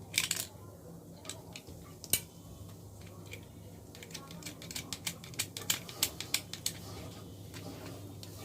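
Sharp plastic clicks and small knocks as a switch is pressed and snapped into a plastic switch board: one click just after the start, another about two seconds in, then a quick run of clicks in the second half, over a low steady hum.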